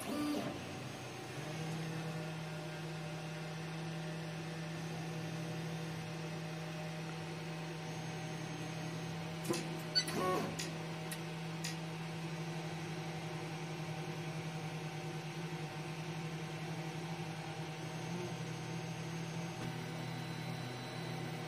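Stepper motors of a Pratham 3.0 dual-extruder 3D printer humming steadily while the machine homes its axes at the start of auto bed levelling. A few light clicks about halfway through.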